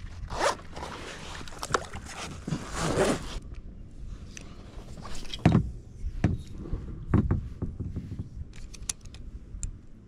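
Gear being handled in a kayak: a rasping, zipper-like scrape over the first three seconds or so, then scattered knocks and clicks, with two heavier thumps near the middle.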